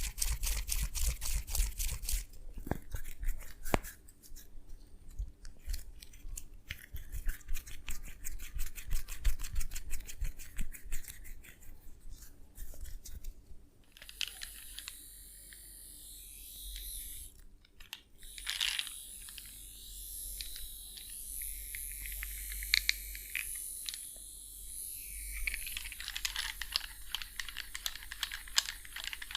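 Hands massaging a person close to the microphone. For the first half come fast runs of sharp clicking strokes; then a softer, high rubbing hiss with scattered clicks.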